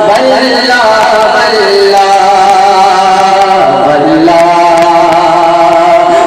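A naat sung by a solo voice, drawing out long held, ornamented notes that slide slowly from pitch to pitch.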